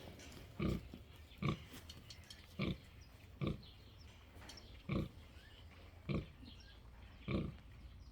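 A sow grunting: seven short, low grunts at a fairly even pace, roughly one a second.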